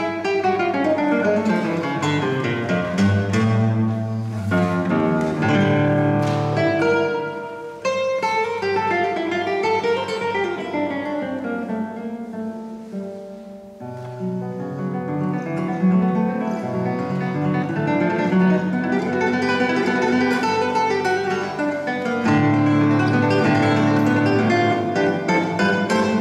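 Classical guitar playing with a string orchestra of violins, violas and cellos. The music thins to its softest about halfway through, then the strings come back fuller, with low notes held through the last few seconds.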